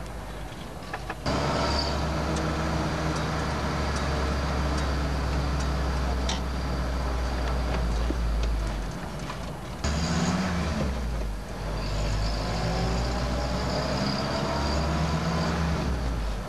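Car engine and road noise heard from inside the cabin while driving, a steady low drone that comes in abruptly about a second in. The engine note rises as the car accelerates in the last few seconds.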